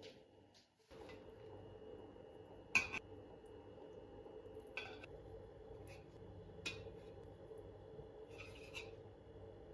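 A few light clinks and taps of kitchenware, scattered a couple of seconds apart, with the sharpest near three seconds in, over a faint steady hum.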